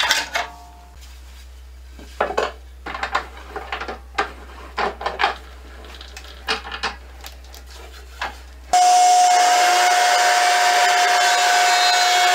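Short wooden knocks and clunks as a board is set and clamped in a homemade wooden leg vise. About two-thirds of the way through, an electric hand planer comes in and runs steadily with a steady whine, planing the edge of the clamped board.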